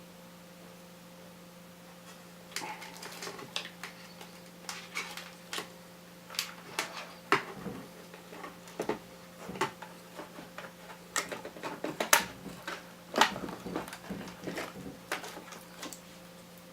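Irregular clicks, taps and knocks of an iMac's logic board and small parts being handled and fitted back into the computer's chassis, starting a couple of seconds in, over a steady low hum.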